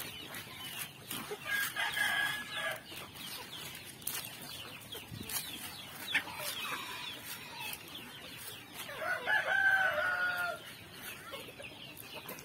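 A flock of native chickens clucking while they feed, with a rooster crowing twice: once about two seconds in and again near the end.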